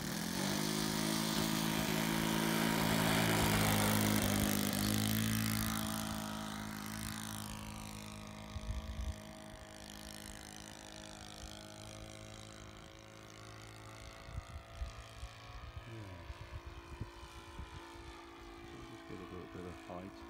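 ASP 61 FS four-stroke model aero engine, converted to run on petrol, driving a three-blade 12x8 propeller on a radio-controlled trainer plane as it takes off and climbs away. The engine note is loudest a few seconds in, drops in pitch about seven seconds in, then fades to a fainter steady drone as the plane gets farther off.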